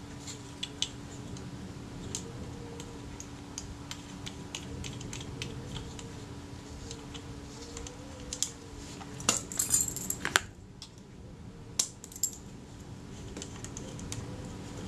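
Small metal parts of a Kodak Retina IIa camera clicking and tapping under the fingers as the rewind button is threaded onto its shaft, scattered light clicks with a louder cluster a little past halfway. A low steady hum runs underneath.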